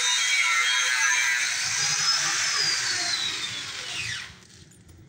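An electric power tool whining at high speed, its pitch sliding down and back up, until the sound drops away about four seconds in.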